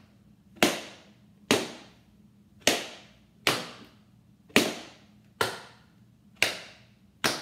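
Tap shoes striking a wooden tap board in slow pull backs: eight sharp, single metal taps about a second apart.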